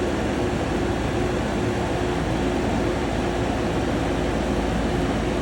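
Steady whirring of a running motor or fan, an even rushing noise with a faint low hum that holds level throughout.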